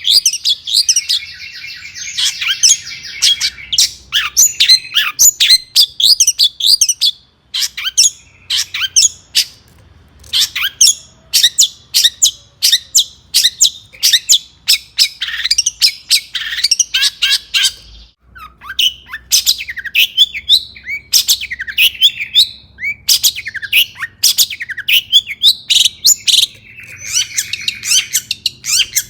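Long-tailed shrike (cendet) singing energetically: a fast run of sharp, scratchy chirps and whistles, twice broken by a buzzy chattering trill, with short pauses about seven and eighteen seconds in.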